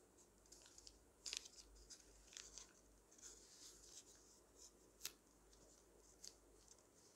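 Faint rustling and crinkling of a sheet of origami paper being folded and creased by hand, in a few short crisp bursts, the sharpest about five seconds in.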